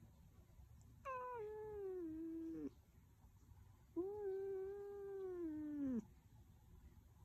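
Cat snoring with a drawn-out whining tone on its breaths: two long cries of about two seconds each, roughly three seconds apart, each sliding down in pitch as it ends.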